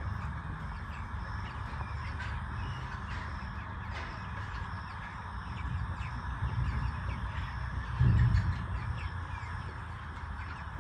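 A large flock of broiler chickens calling and squawking together in a steady dense chatter, with low rumbling handling noise and a louder dull bump about eight seconds in.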